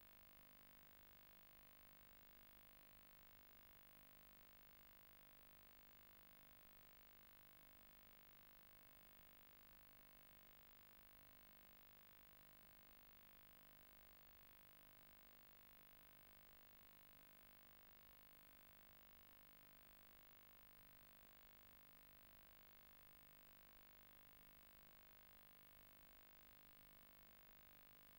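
Near silence: a steady, faint background hiss with low hum, with nothing happening.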